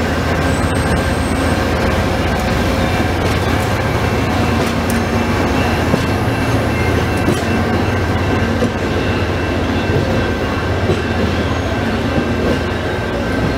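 Amtrak stainless-steel passenger cars rolling past close by at steady speed: a continuous rumble of wheels on rail, with scattered clicks from the rail joints and a faint steady high tone over it.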